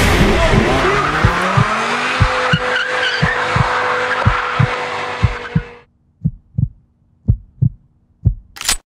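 A Hyundai Elantra's tyres squealing as it peels away in a smoky burnout. Its engine revs up in the first couple of seconds and then holds while the tyres spin. The car noise cuts off abruptly a little past halfway, leaving a heartbeat sound effect: paired thumps about once a second.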